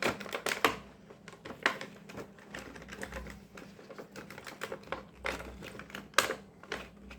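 Toy packaging being handled and opened: irregular clicks, taps and crinkles, with a few louder snaps about half a second in and about six seconds in.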